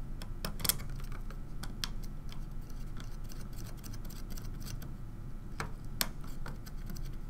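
Scattered light clicks and taps of plastic standoffs being pressed and fitted onto a Raspberry Pi circuit board, at irregular intervals over a low steady hum.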